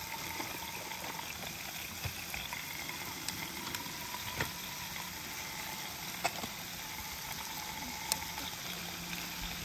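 Slices of pork belly sizzling steadily on a grill pan over a portable butane stove, with a few sharp clicks of metal tongs and scissors working the meat.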